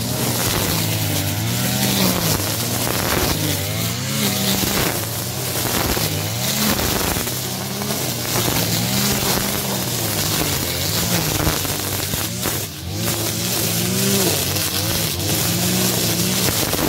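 Backpack brush cutter running and cutting grass and weeds, its small engine's pitch rising and falling every second or two as the throttle is worked.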